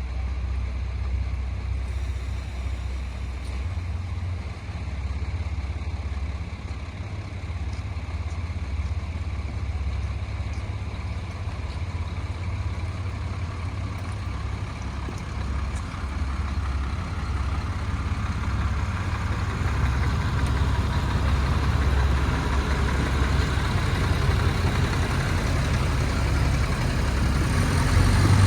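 Diesel railcar engine idling steadily, then growing louder over the last ten seconds or so as the train throttles up to pull away.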